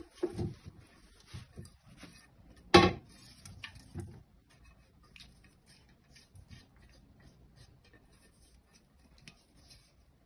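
Boiled potatoes being scooped by hand out of a metal pot into an air fryer basket: soft rubbing and small clicks, with a few knocks in the first few seconds, the loudest about three seconds in.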